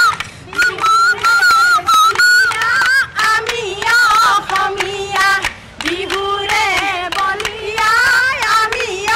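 Bihu folk song sung by women's voices, carried on a quick, steady beat of claps.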